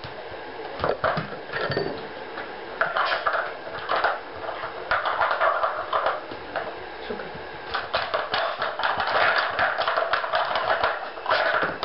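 Hard plastic blocks of a Dog Smart puzzle toy knocking and clattering against the plastic board as they are nosed, pawed and lifted, in irregular clicks that pile into a fast run about two thirds of the way through.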